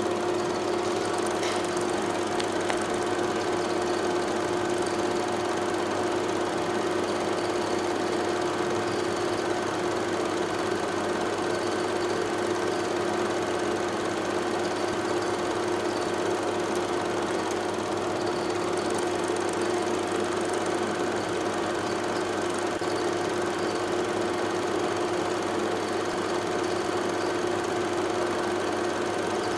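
A steady machine-like hum with an unchanging pitch over a constant hiss.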